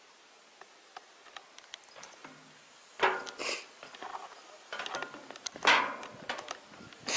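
Footsteps going down a steel staircase with checker-plate treads. After a quiet start with a few light clicks, heavier metallic steps land about every half second to second from about three seconds in.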